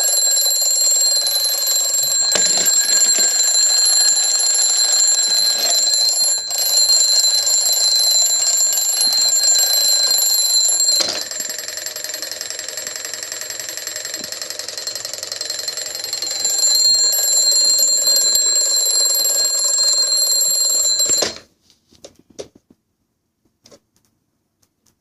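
Alarm clock ringing continuously in a shrill, high-pitched ring. It drops in level for about five seconds midway, then cuts off suddenly about 21 seconds in, followed by a few faint clicks.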